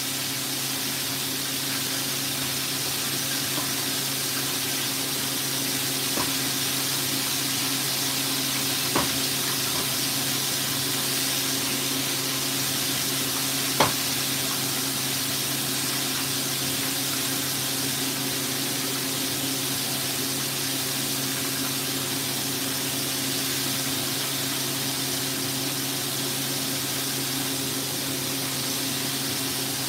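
Chicken wings deep-frying in a pot of oil that is too hot: a steady, even sizzle, with a few brief taps along the way.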